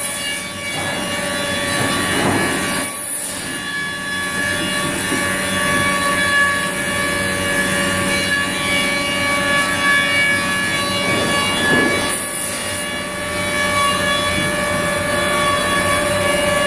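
Weinig Hydromat eight-spindle four-sided planer-moulder running, its spinning cutter spindles giving a loud, steady whine of several pitches over a mechanical hum.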